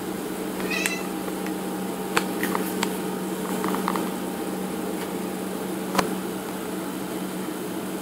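Light clicks and taps from hands working a Bluetooth selfie stick, the sharpest about two and six seconds in, over a steady low hum. A brief high-pitched call comes about a second in.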